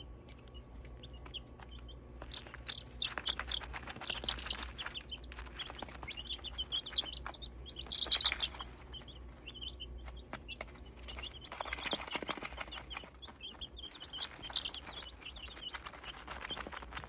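A brood of week-old chicken chicks peeping: many short, high-pitched peeps that come in busy bursts, thinning out between them.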